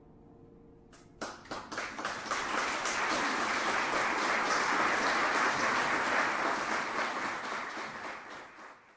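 The last chord of the piece dies away, and about a second in an audience breaks into applause. It builds quickly to steady clapping and fades near the end.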